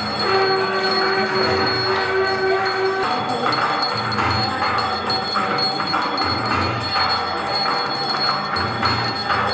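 Temple bells ringing continuously during aarti, with low drum beats throughout and one long held note in the first three seconds.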